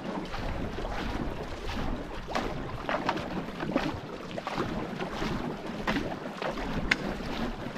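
Paddles of a two-person racing canoe catching and pulling through the water in a quick, steady rhythm of splashes, about two strokes a second, with wind on the microphone.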